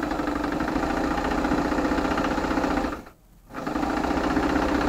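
Electric household sewing machine stitching a seam through quilted fabric with a steady, rapid needle rhythm. It stops for about half a second about three seconds in, then starts up and runs again.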